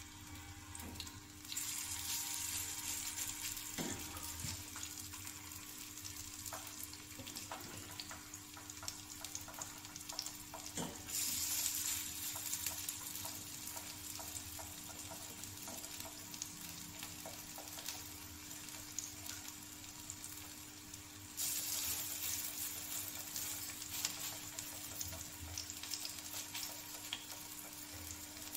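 Kofta patties sizzling on a flat iron tawa over a gas flame: a steady high hiss that grows louder a few times as more patties are laid down, with faint small ticks.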